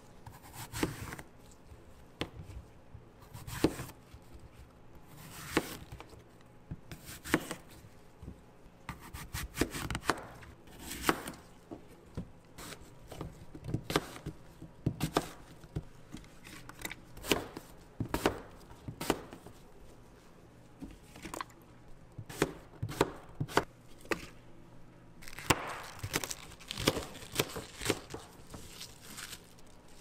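A kitchen knife cutting an apple on a cutting board: irregular sharp chops about every second or two, with quieter food-handling noises in between.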